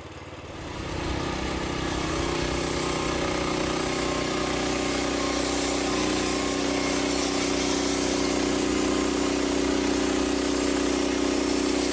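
Portable band sawmill running on its 13 horsepower Briggs engine. The sound rises over the first two seconds, then holds steady.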